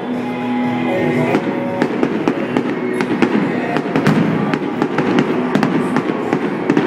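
Fireworks display going off, with many sharp bangs and crackles in quick succession over a continuous rumble.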